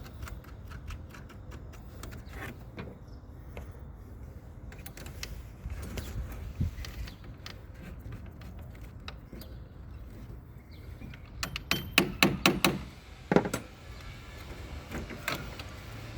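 Scattered metallic clicks and clinks of hand tools being handled, with a quick run of loud, sharp clicks about twelve seconds in, over a steady low hum.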